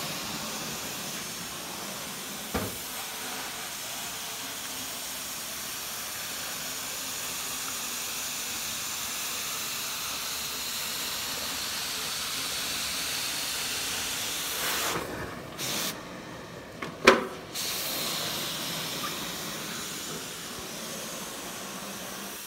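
Carpet-cleaning extraction wand giving a steady hiss of spray and suction as it is worked over carpet. The hiss drops away for a couple of seconds about two-thirds of the way through, with a sharp clack in the middle of the gap. A lighter knock comes a few seconds in.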